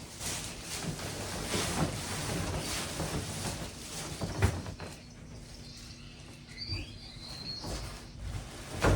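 Packing material rustling and parts being handled, with a sharp knock about four and a half seconds in and a heavier thud near the end. A short high squeak sounds about two-thirds of the way through.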